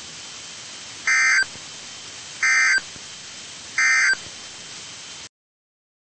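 EAS end-of-message data bursts over a NOAA Weather Radio stream: three short, identical buzzy digital tone bursts about a second and a half apart, over faint radio hiss. The audio cuts off to silence shortly after.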